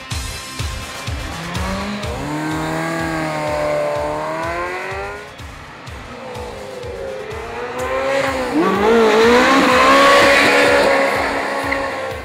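Ferrari engines revving hard as cars accelerate past one after another, the first pass a few seconds in and a louder second one near the end with tire squeal as the car lays rubber. Background music with a steady beat runs underneath.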